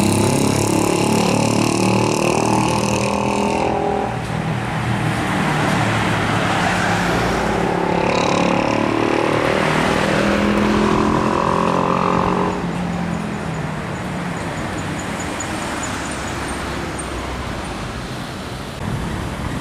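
City street traffic: motor vehicles passing, with engine sound strongest in the first four seconds and again from about six to twelve seconds, over a steady traffic hum.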